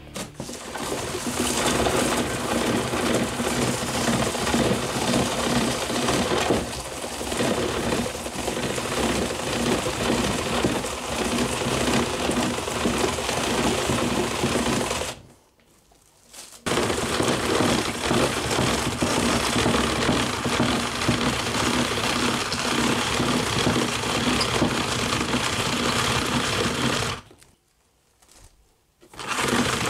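Hand-cranked Cabbage-kun commercial cabbage slicer shredding a whole cabbage: a rapid, steady crisp crunching as the turning handle drives the blades through it. It stops for a second or two about halfway through and again near the end.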